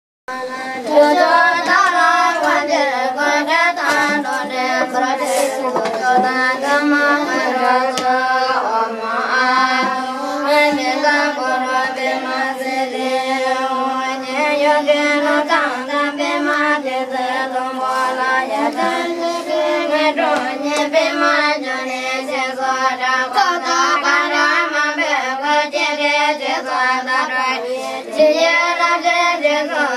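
Group of young Tibetan Buddhist novice nuns chanting a prayer text together from their pechas, a continuous sung recitation held mostly on one pitch with small melodic rises and falls.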